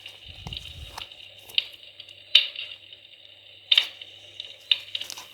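Fire in a fireplace crackling, with a steady hiss and sharp pops every second or so, and a low thump about half a second in.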